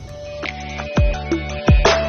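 Electronic outro music coming in: deep bass kicks that drop in pitch, a sharp clap, and short held synth notes.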